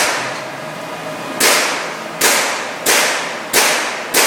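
A string of gunshots at a fairly steady pace, about one every two-thirds of a second after the first, each followed by a long echoing decay in an indoor firing range.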